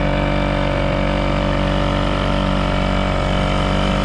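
A small engine running steadily at an even speed, loud and close.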